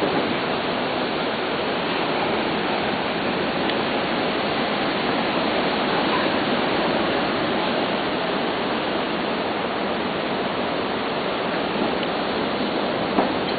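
Steady, unbroken rush of ocean surf breaking on the shore. One small sharp knock near the end.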